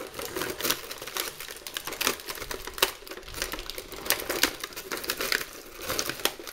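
Thin clear plastic blister tray crinkling and crackling with many irregular sharp clicks as an action figure is pried out of its moulded slot.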